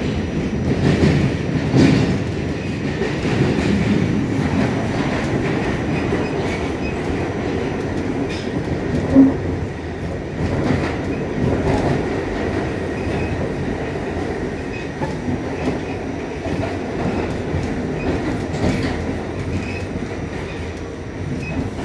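New York City subway car running through the tunnel, heard from inside the car: a steady rumble with scattered clicks of the wheels over the rails, and one brief louder tone about nine seconds in.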